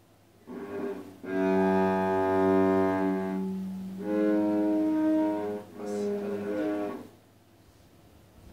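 A beginner bowing single notes on a cello: four separate notes with short breaks between them, the second held for about two and a half seconds.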